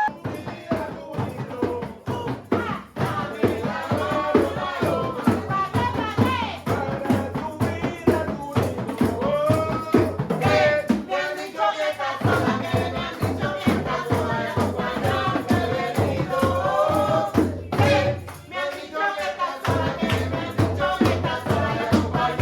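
Music with a steady, busy beat and pitched melodic lines over it.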